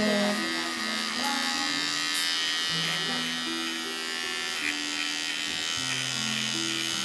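Electric pet clippers running with a steady hum, cutting a cat's fur, over background music with a slow melody of held notes.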